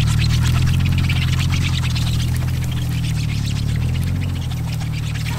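Jeep Wrangler TJ engine running steadily at low speed as the Jeep rolls off through tall dry grass, with a dense crackle of grass being brushed and crushed.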